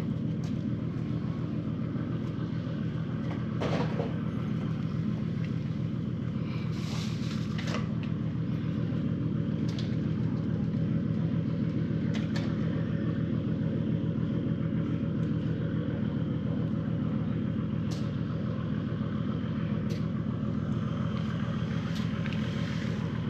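Brown-tabby-and-white cat purring steadily while being stroked, a low rapid pulsing rumble, with a few faint clicks over it.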